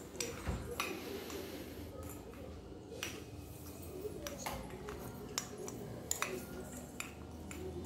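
A plastic spoon stirring soaked peanuts, grated coconut and chopped dates in a small stainless-steel bowl: scattered light clicks and clinks of spoon and nuts against the steel.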